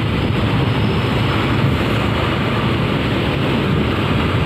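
Steady road noise from riding in traffic close behind a coach: engine and tyre noise under wind buffeting on the microphone.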